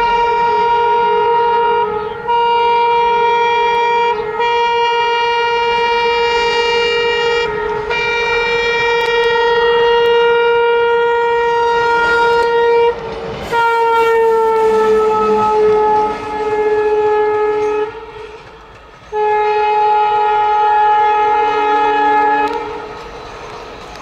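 Indian Railways WDG3 diesel locomotive sounding its horn in long, repeated blasts as it approaches at speed. About halfway through it rushes past close by and the horn drops in pitch as it moves away, with a few more lower blasts near the end.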